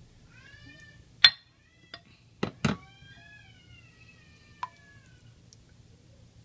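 A spoon clinking sharply against a mixing bowl a few times, the loudest clink a little over a second in, while a cat meows twice, the second meow long and slowly falling in pitch.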